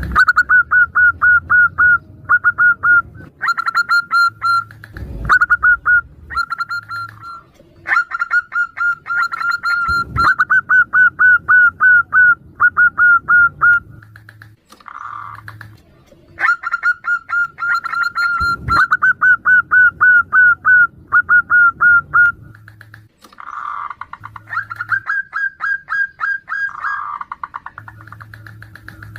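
Zebra doves (perkutut) calling back and forth, a female calling to a male: fast runs of short, high cooing notes, about eight a second, in phrases of a few seconds with short pauses and a few softer lower calls between.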